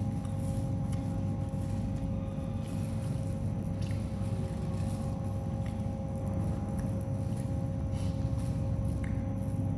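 Steady low background rumble with a faint constant hum, like distant traffic or machinery, with a few faint clicks.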